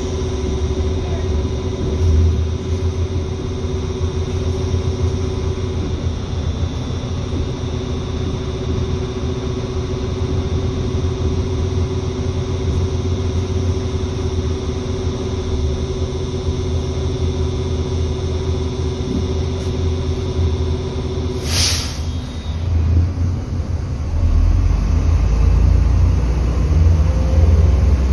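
Inside a MAZ 105 city bus under way: a steady low rumble of engine and road with a faint steady whine. About three quarters of the way through there is a short, sharp burst of hiss, and a couple of seconds later the rumble grows louder and stays up.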